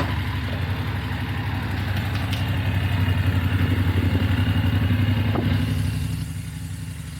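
Motorcycle engine idling steadily with an even low pulse, a little quieter near the end.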